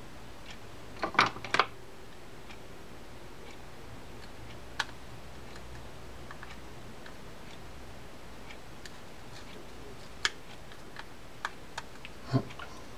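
Scattered small, sharp clicks and taps of a screwdriver and small screws being worked into a Shimano Corsair 400 baitcasting reel's side plate: three quick clicks about a second in, a single tap a few seconds later, and a run of clicks near the end, over a steady low hum.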